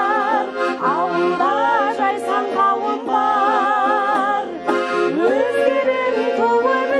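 Button accordion (bayan) playing a song accompaniment, with a voice singing over it in long wavering held notes and slides between pitches.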